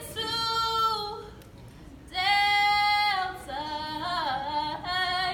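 Women's voices singing unaccompanied, in high, long-held notes in short phrases with brief pauses between them.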